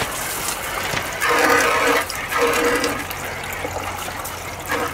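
Water from a hose rushing into a plastic bucket as it is rinsed out and pouring on into a funnel, a steady gush with two louder surges partway through.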